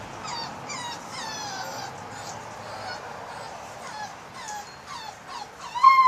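Young puppies whimpering and yipping: many short whines that fall in pitch, overlapping, with one louder, longer whine near the end.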